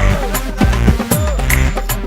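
Background electronic music with a strong, regular beat and deep bass.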